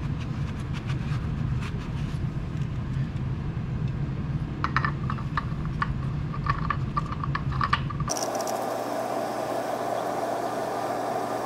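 Light clicks and scrapes of a rag and a new oil filter being handled and threaded onto the motorcycle's filter mount by hand, over a steady low background hum; the hum changes abruptly about two thirds of the way in.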